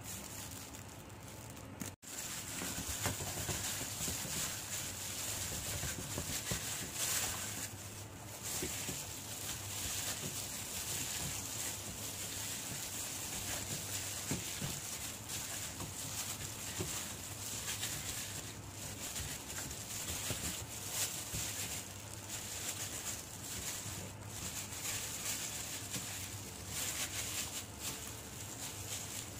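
Plastic-gloved hand kneading pork chops in their soy-sauce marinade: irregular crinkling and rustling of the plastic glove with small wet clicks, over a steady hiss and low hum.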